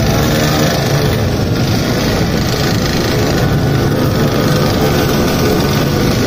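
A small motorbike engine running steadily at an even cruising speed, with a constant low hum.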